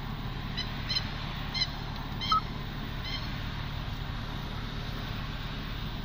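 Steady in-cabin hum of the running Hyundai i30, its engine and ventilation fan, with a quick run of five short, high chirps spread over the first three seconds.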